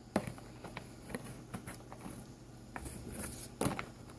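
Irregular light clicks and taps of plastic slime containers being handled, with a sharper knock just after the start and another about three and a half seconds in.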